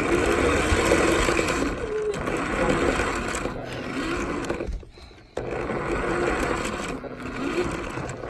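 Small electric motor of a toy car running, picked up by a phone riding on the car, its pitch wavering; it cuts out briefly about five seconds in, then runs again.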